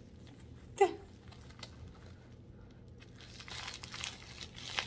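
Plastic packaging of a diamond painting kit crinkling and rustling as it is handled and opened, growing busier about three seconds in. About a second in, one short vocal sound that falls in pitch, the loudest moment.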